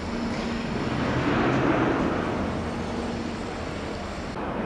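Steady rumble and hiss of distant construction-site machinery at high-rise apartment buildings going up, swelling a little about a second and a half in.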